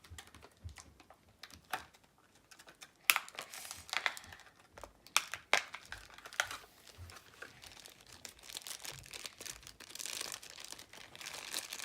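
Plastic toy packaging crinkling and crackling in irregular bursts as a small figure is unwrapped, with a denser run of crinkling near the end.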